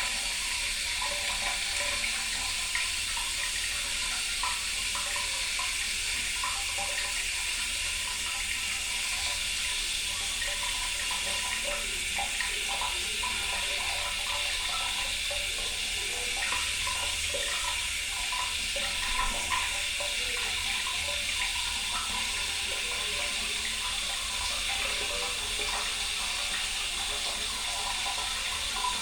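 Water running steadily without a break, with small scattered splashes in it.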